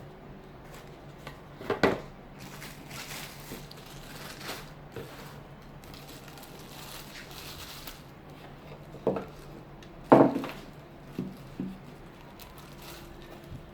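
Blender parts and packaging being handled: a few separate light knocks and clicks of plastic, the loudest about 10 seconds in, with some rustling between them.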